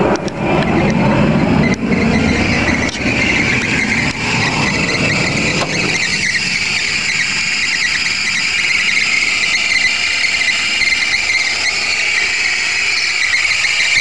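1999 Nissan Maxima's V6 idling just after a cold start with a loud, steady, high-pitched accessory drive belt squeal, which grows stronger about three seconds in. Low rumbling underneath fades out after the first few seconds.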